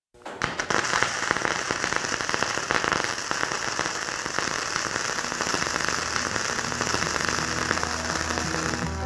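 Flux-cored wire-feed welding arc crackling and spattering steadily, starting abruptly. Guitar music fades in beneath it in the last few seconds.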